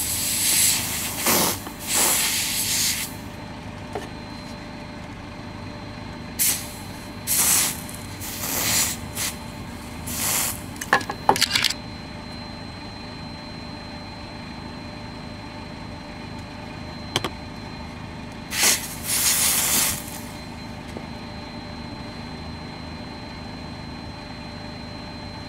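Freeze spray hissing from an aerosol can's straw in short bursts onto a leaking-capacitor-damaged engine control board, cooling one section at a time to find a thermal fault. There are several bursts in the first three seconds, a cluster through the middle, and a last, longer burst about three quarters of the way in, over a steady background.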